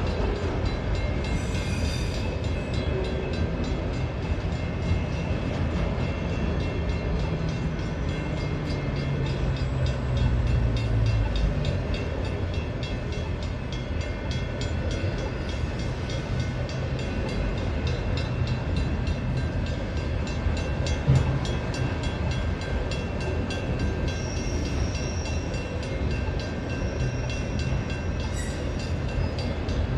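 Freight cars of a long train rolling past at a grade crossing: a steady rumble of steel wheels on rail with a fine, even clatter. There are brief high-pitched squeals about two seconds in and again near the end.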